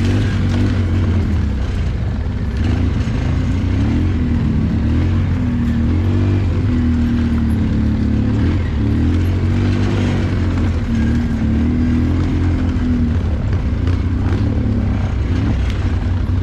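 ATV engine running at low revs while riding, its pitch rising and falling with the throttle.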